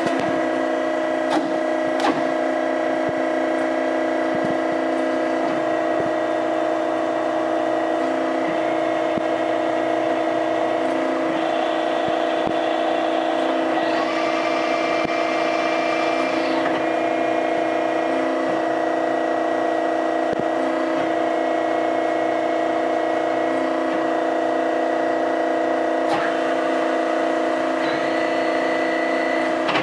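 Warner & Swasey No. 3 ram-type turret lathe running under power: a steady machine hum with a pitched whine from its motors and headstock gearing. A higher whine joins for a few seconds about halfway through, and a few sharp clicks come from its levers and controls.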